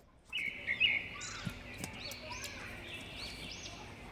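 Birds chirping, several overlapping calls starting suddenly about a third of a second in, with a couple of faint knocks.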